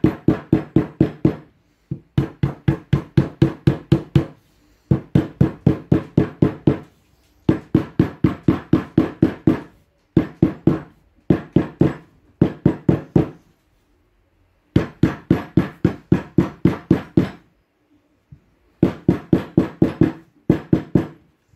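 Small rubber mallet tapping a metal glazing channel down onto the edge of a glass pane, in quick runs of about four or five knocks a second with short pauses between runs. Each knock has a low, pitched ring, and the channel takes force to seat.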